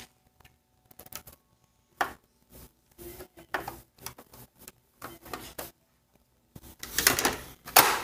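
Plastic parts of a PAW Patrol toy fire truck clicking, tapping and rattling as they are handled, with a longer, louder scraping rustle about seven seconds in.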